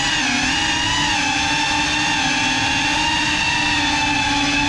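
FPV quadcopter's motors and propellers whining steadily in flight, several tones layered together, dipping a little in pitch near the start as the throttle eases.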